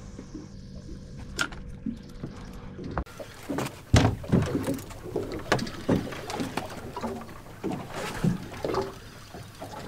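Water lapping and slapping against the hull of a small center-console boat drifting at sea, with irregular knocks and splashes. It is quieter and steadier for the first three seconds, then busier with sharper slaps.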